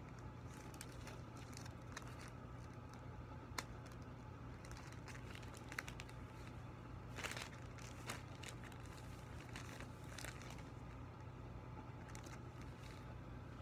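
Uninflated mylar foil balloon crinkling and rustling as it is handled and unfolded, with scattered sharp crackles, the loudest about seven seconds in, over a faint steady low hum.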